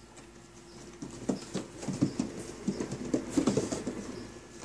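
A cat moving about in a homemade plywood cat wheel: irregular taps and knocks from his paws and the wheel, starting about a second in and thinning out near the end.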